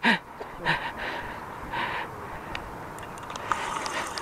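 Short breathy sounds from a person, a few quick exhalations, over a steady outdoor hiss, with a few faint clicks near the end.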